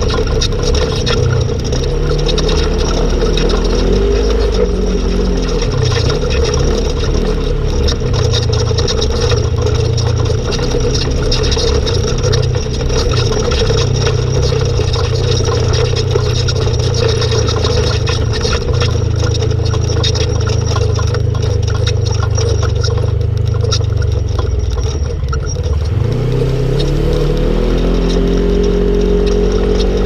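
Polaris RZR RS1 side-by-side's twin-cylinder engine running under way, its pitch dipping and rising with the throttle, with a clear climb in revs about four seconds before the end. Rattles and knocks from the machine come through throughout.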